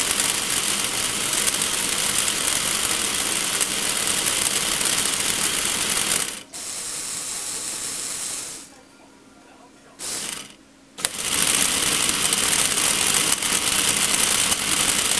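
A Lego Technic plastic gear train spun by an electric motor, its gears whirring and clattering. The noise drops to a quieter run about six seconds in and stops near nine seconds. There is a short burst near ten seconds, and it runs loud again from about eleven seconds.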